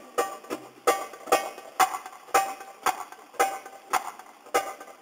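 Belly-dance music carried by a steady percussion beat: sharp strikes about twice a second, each with a short ringing tone.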